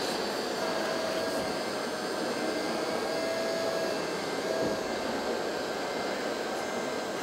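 Hydraulic pump of a radio-controlled Liebherr 924 wheeled excavator model whining in three short spells as the boom and log grapple are worked, over the steady hum of a crowded hall.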